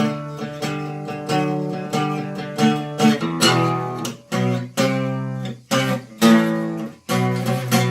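Acoustic guitar strumming chords, with a few short breaks in the playing.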